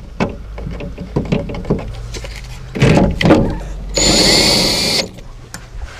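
Drill driving Torx screws into a truck-bed rail: handling clicks and rattles, then short runs of the drill, the longest about a second with a high whine.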